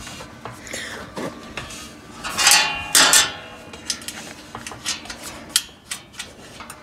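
Small metal clicks and clinks of a nut being fitted onto a bolt through the steel panels of a cargo basket, with two louder ringing metal clanks about two and a half and three seconds in, then a run of quick sharp clicks.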